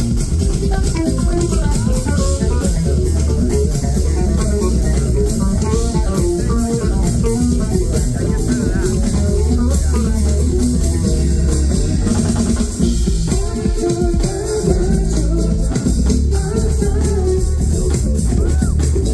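Live band music: an electric bass playing quick runs of notes over a drum kit with cymbals, loud through a concert PA.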